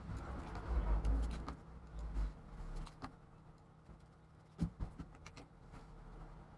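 Handling noise from work on a laptop's plastic case: low thumps and rustling for the first two and a half seconds, then a few sharp clicks about four and a half seconds in.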